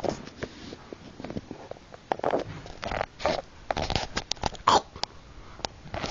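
A baby's short noises: brief vocal sounds broken up by sharp clicks, with a quick run of clicks about four to five seconds in.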